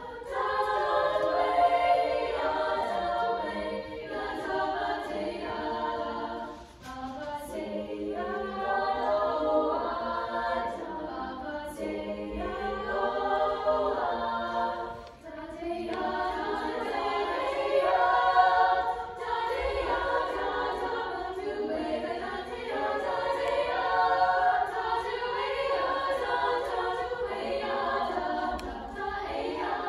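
Girls' choir singing without accompaniment, with two brief breaks between phrases about seven and fifteen seconds in.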